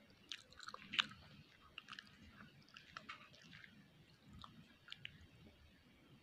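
A person chewing a mouthful of noodles, soft irregular wet clicks and smacks of the mouth, busiest and loudest in the first three seconds.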